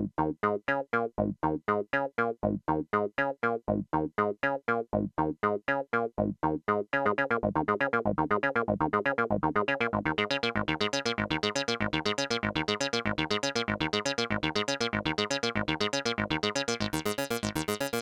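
Knobula Poly Cinematic Eurorack synth playing a sequenced run of short plucked notes, about three to four a second with gaps between them. About seven seconds in, the notes speed up and ring into one another, and the sound grows brighter near the end.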